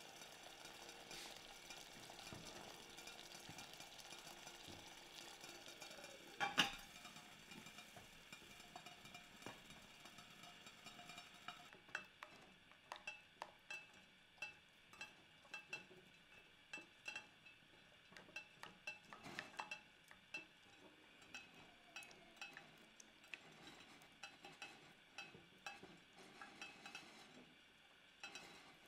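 Silicone spatula stirring a thick, heated starch mixture in a glass pot, knocking and scraping against the glass in quick, irregular clicks through the second half. Before that there is a steady hiss and one knock about six seconds in.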